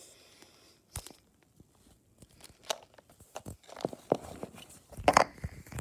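Foil blind-bag wrapper crinkling and rustling as it is handled, with a few sharp taps and clicks. The loudest crinkling comes near the end.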